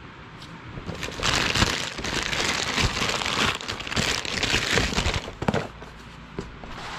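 Plastic courier pouch crinkling and rustling as it is handled and opened and a cardboard box is pulled out of it, starting about a second in and stopping after about four seconds, followed by a few light knocks as the box is set down.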